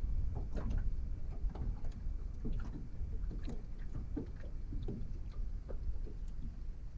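Fishing reel being wound in on a hooked fish, with scattered small irregular clicks and splashes over a steady low rumble.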